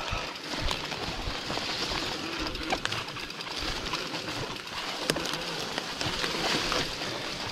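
Bicycle moving over a rough, wet, grassy track: a steady rustle of tyres and grass, with scattered sharp rattles and clicks from the bike.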